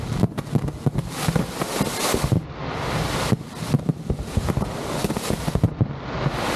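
Fireworks display going off in rapid, irregular succession: many sharp bangs and crackles over a steady rushing noise.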